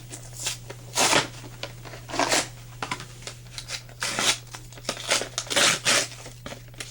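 Toy packaging and plastic being handled: several short rustling, crinkling bursts with small clicks between them, over a steady low hum.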